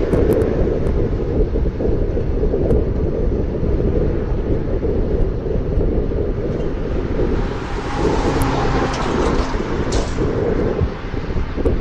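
Wind buffeting the camera microphone while riding, a steady loud rumble with a few faint clicks.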